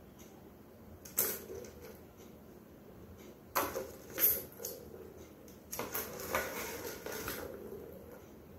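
Small plastic balls rattling and rolling in the tracks of a tiered plastic ball-track cat toy as a kitten bats at it and knocks it about. The rattling comes in three bouts: a short one about a second in, then longer ones around the middle and just after.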